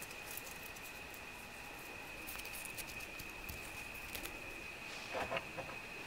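Faint, scattered light clicks and crackles of hands preparing a sandwich at a table, with bread and dried lavender handled over a wooden board. A faint steady high tone runs beneath, and a short, louder rustle and tap comes about five seconds in.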